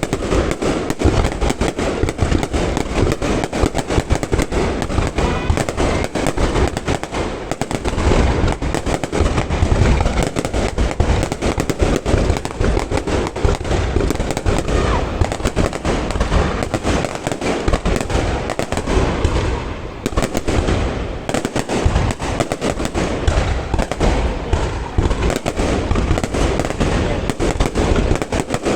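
Aerial fireworks display: a continuous rapid barrage of bursting shells, many cracks and booms a second, easing briefly about twenty seconds in.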